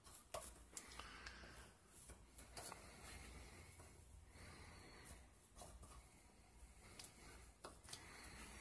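Faint scraping and small clicks of a metal putty knife scooping Bondo body filler off a mixing board and packing it into a PVC tube.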